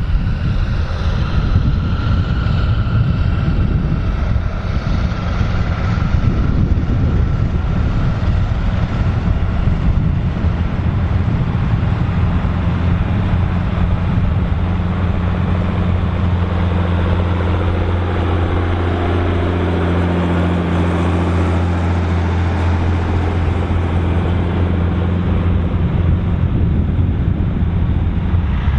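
Volvo BM 2654 tractor's diesel engine running steadily while ploughing, with wind noise on the microphone. A faint high whine rides over the engine for the first several seconds.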